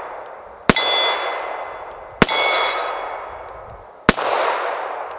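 Three revolver shots from a Ruger SP101 snub-nose .357, spaced a second and a half to two seconds apart. After each shot a steel target rings with a clear metallic clang that fades over about a second, marking a hit.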